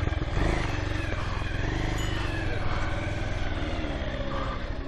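Motorcycle engine running with a steady low firing beat, its pitch shifting a little in the second half as the revs change.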